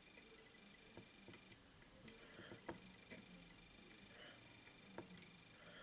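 Near silence with a few faint, scattered ticks from fly-tying thread being wrapped onto a hook with a metal bobbin holder.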